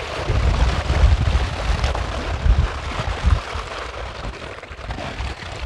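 Wind buffeting the microphone: a low rumble in uneven gusts over a steady hiss, easing off near the end.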